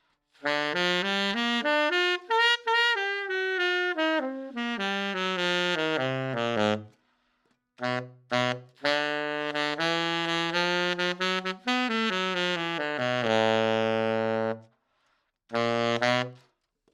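Saxophone played on the Desert Blush v0.8 mouthpiece, which has a curved baffle. It plays a run up and back down, pauses, then plays more phrases ending on a long held low note, with one short low note near the end.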